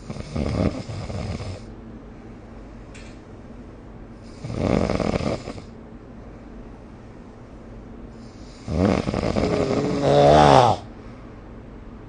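A person snoring in their sleep: three snores about four seconds apart. The last is longer and the loudest, and takes on a clear pitch near its end.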